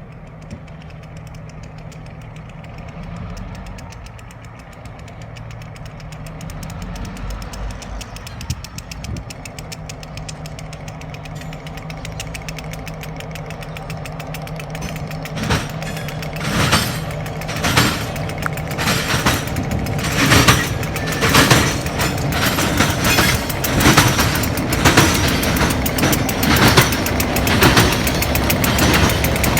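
Diesel locomotive engine running with a steady low hum, growing louder from about halfway through, with regular sharp knocks about once a second in the second half.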